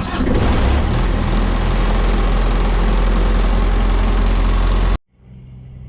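Heavy diesel engine running close by: a loud, steady low rumble with a wash of noise above it, which cuts off abruptly about five seconds in, leaving a faint steady hum.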